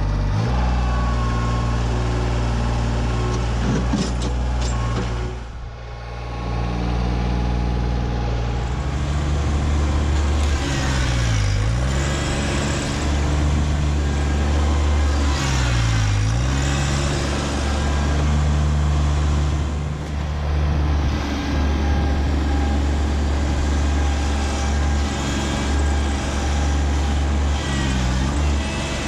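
Kubota compact tractor's diesel engine running hard under load as the loader bucket pries at a maple stump. Twice midway the engine note sags as it is pulled down, then recovers. The level drops briefly about five seconds in.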